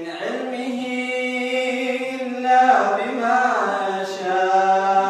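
An imam reciting the Quran aloud in a slow, melodic chant. His voice holds long notes, winds through a few turns of pitch in the middle, then settles into another long note.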